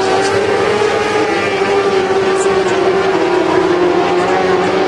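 Mini sprint cars racing on a dirt oval, several engines at high revs together in a steady, high-pitched drone.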